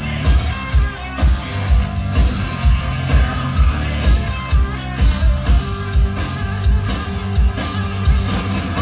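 Hard rock band playing live: electric guitars, bass guitar and drums with a steady kick-drum beat, and a lead singer.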